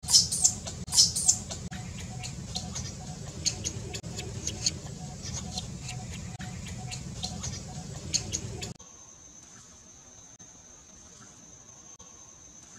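Dry leaf litter crackling and rustling in quick, irregular sharp clicks over a low rumble as a baby macaque rolls and scratches in it. This cuts off suddenly about nine seconds in to a steady, high-pitched insect drone.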